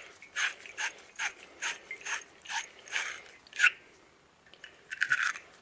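A wire terminal-cleaner brush scrubbing the inside of a freshly cut piece of half-inch copper pipe, cleaning it out for a good connection: a series of short scraping strokes, about two to three a second, that stop about three and a half seconds in, followed by a brief flurry of strokes near the end.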